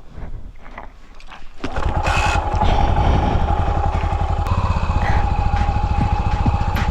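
Yamaha SR400 single-cylinder motorcycle engine that comes in suddenly about a second and a half in, then runs with a fast, even beat.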